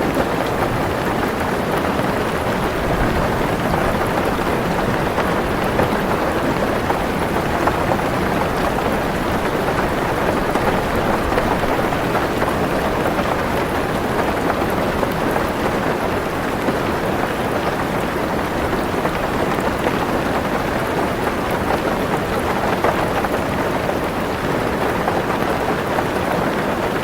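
Heavy rain beating steadily on a car roof, heard from inside the car: a dense, even patter that does not let up.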